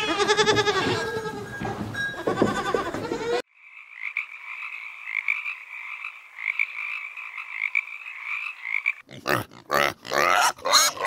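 Goats bleating, cut off suddenly about a third of the way in, followed by a tree frog's steady run of rapid pulsed croaks. Near the end a pig grunts and snuffles.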